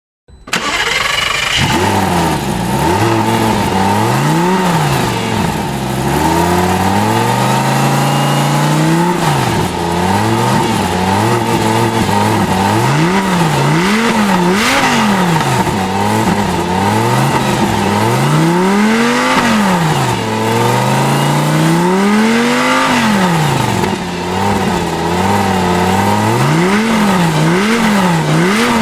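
Lamborghini Gallardo's V10 engine bursts into life, settles to idle, then is revved repeatedly. The blips rise and fall, some short and some held longer, and come in quicker succession near the end.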